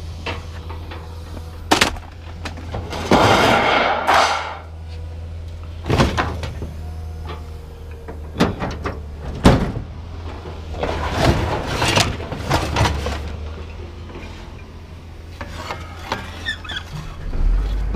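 Scrap being unloaded from a pickup: scattered knocks, clanks and scrapes, with a slam about nine and a half seconds in, over a steady low hum.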